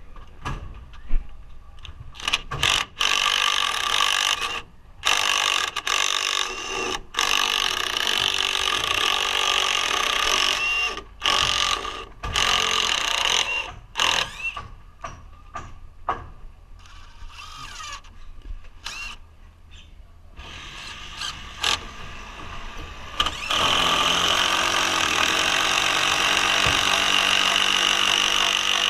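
A DeWalt cordless driver driving screws into wooden roof trusses, running in repeated bursts of one to a few seconds that start and stop sharply, with one longer unbroken run near the end.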